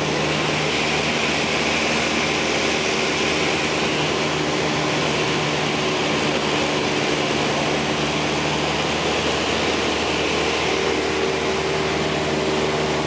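Single-engine light airplane's engine and propeller droning steadily in cruise, heard from inside the cabin.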